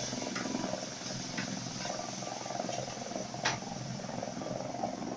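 Distant helicopter flying past: a steady, rapid low pulsing of the rotor under a hissing noise, with a few faint clicks.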